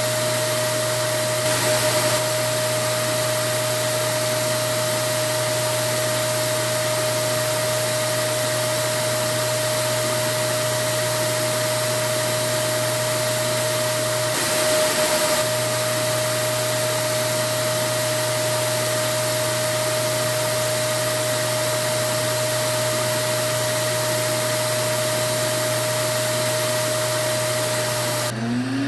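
Vacuum cleaner running steadily: a constant motor whine over an even rushing noise. Just before the end the steady whine breaks off and a new whine rises in pitch.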